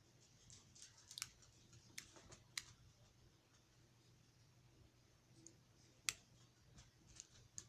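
Faint, scattered clicks and taps of small plastic fidget toys being handled, with a sharper click about six seconds in.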